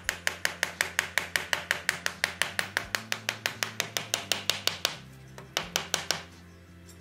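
A mallet tapping a wooden block into a gap in an old wagon gear's weathered timber: quick light blows, about seven a second, then a short pause and four more taps near the end.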